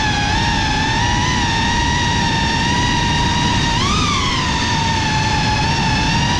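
GEPRC CineLog35 FPV drone's motors and ducted propellers whining in flight at a steady pitch, which rises briefly about four seconds in, over a low rushing noise.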